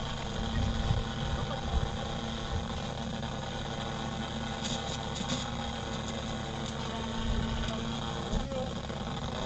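Steady drone of a model airplane's electric motor, with wind rumbling on the microphone.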